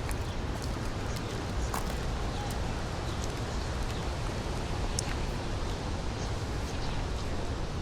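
Outdoor city park ambience: a steady low rumble of background noise with scattered small clicks and a few faint, brief chirps.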